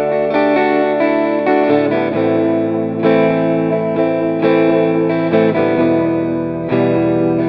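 Background music: a guitar-led instrumental with effects, playing steady chords that change about once or twice a second.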